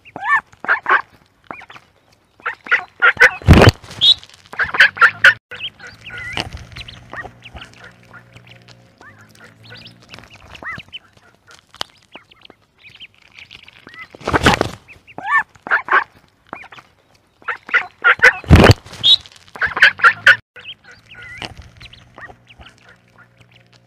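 Ducks quacking, with a few loud sharp quacks among rapid high-pitched peeping of ducklings. The calls come in busy clusters separated by quieter stretches.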